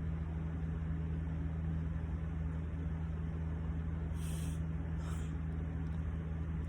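Steady low electrical hum, with two brief soft hissing sounds about four and five seconds in.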